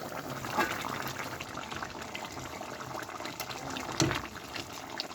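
Chicken curry gravy bubbling in a cooking pot, with scattered small clicks and one sharper knock about four seconds in.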